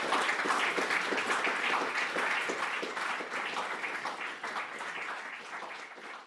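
Audience applauding, many hands clapping, gradually fading out near the end.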